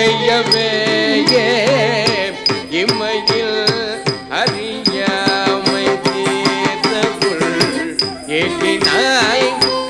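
Carnatic dance accompaniment in raga Kambhoji, misra chapu tala: mridangam strokes and small nattuvangam cymbal taps keep a brisk, even rhythm under an ornamented melodic line with sliding pitch bends, over a steady drone.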